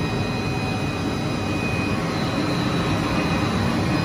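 Air bubble film making machine running: a steady, even mechanical noise with a thin high whine over it.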